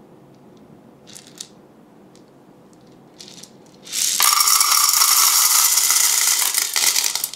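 Dried popcorn kernels rattling hard inside the chamber of a Snoopy push-cart hot-air popcorn machine for about three seconds, then cutting off suddenly, after a couple of light clicks.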